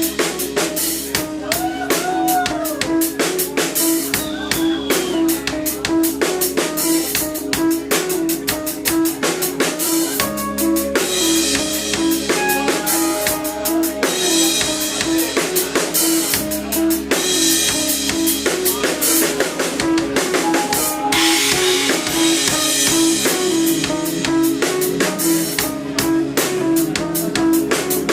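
Heavy instrumental rock band playing live: a drum kit keeps a steady beat under bass and electric guitar, with a repeating riff note and a couple of bending guitar notes a few seconds in.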